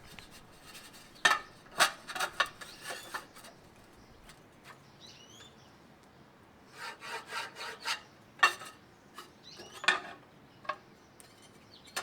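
Aluminum trim coil being handled and marked: scattered light scrapes, rubs and small knocks of thin sheet metal, coming in two clusters.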